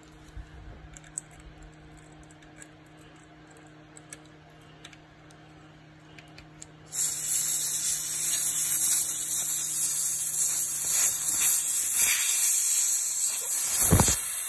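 Air hissing steadily out of a car tyre's valve stem with the valve core unscrewed by a valve core tool: the tyre deflating. The hiss starts suddenly about seven seconds in, and there is a short thump near the end.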